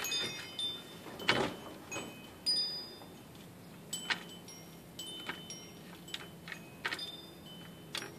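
Cats pawing at a plastic circular cat toy, with scattered taps and clicks on the plastic, the loudest about a second in and again after two and a half seconds. Short high ringing tones and a faint steady low hum run under them.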